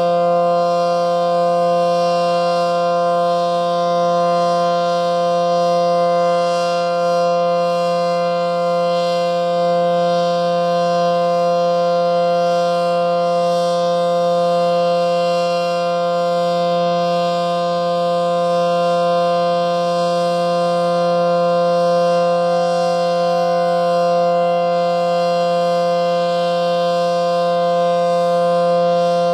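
ACA Allertor 125 tornado siren with 9/12 ports sounding full alert: a loud, steady chord held at one pitch without rising or falling. Its rotation isn't working, so the sound doesn't swell and fade as it would on a turning siren. The siren is also running reverse-wired, a fault the uploader notes.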